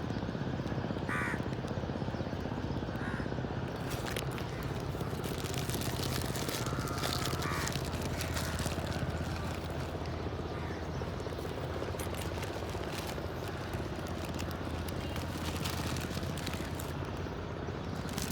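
Crows cawing a few times, in short calls, over a steady low rumble with scattered clicks.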